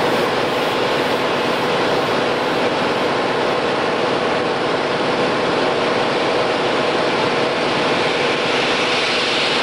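Motor boat's engine running steadily: a constant hum under an even rushing noise.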